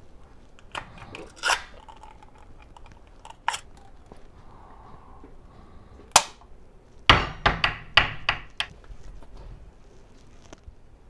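Ring-pull lid of a Spam can being pried up and peeled back, giving sharp metallic clicks and pops spread over several seconds. About seven seconds in comes a quick run of louder knocks as the metal can is worked against a wooden cutting board to free the loaf of meat.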